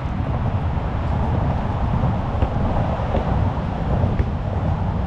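Wind buffeting the microphone: a steady low rumble with no clear pitch, with a couple of faint ticks in the middle.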